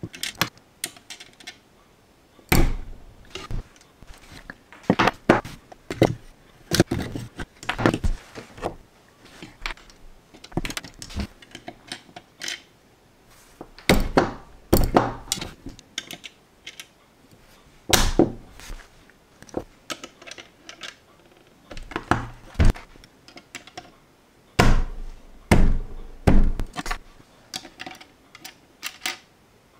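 Irregular clicks and knocks of LEGO bricks being handled with steel tweezers and pressed onto a small plastic model car, with several heavier thumps against the tabletop.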